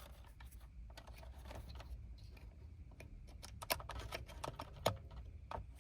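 Faint, scattered small clicks and taps of the airbag module's plastic wiring connectors and earth wire being handled and fitted, with a couple of sharper clicks in the second half.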